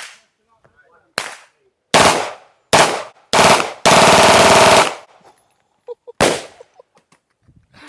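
Gunshots from a firearm with a forced-reset trigger: several single shots about a second apart, then a rapid string of shots lasting about a second in the middle, then two more single shots.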